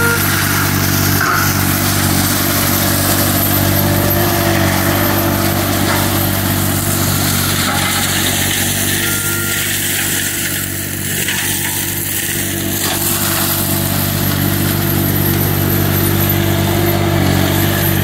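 Green Climber LV600 remote-controlled slope mower's Kohler engine running steadily under load while its MDB flail mulcher head shreds brush, a constant engine note under the rushing noise of the spinning flails.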